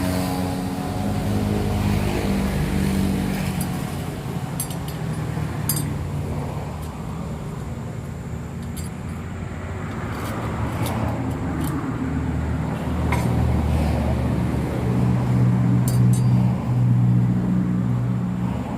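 An engine running, its low hum shifting in pitch and growing louder near the end, with a few sharp metallic clinks.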